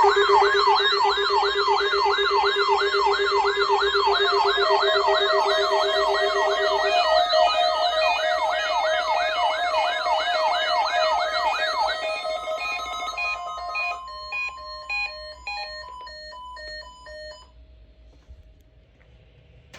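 Several electronic weather-alert alarms sounding together, announcing a newly issued alert: a fast warbling siren tone rising and falling about twice a second over steady tones. About twelve seconds in it gives way to on-off beeps, which stop a few seconds later.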